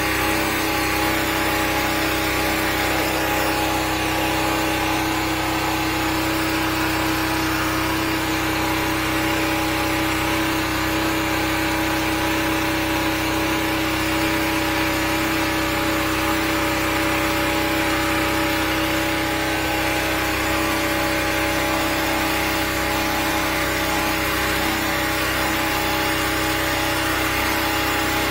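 The engine of a 13-horsepower high-pressure sewer jetter running steadily at constant speed, with a steady hiss over it, as its turbo drill nozzle works against a grease blockage in the drain line.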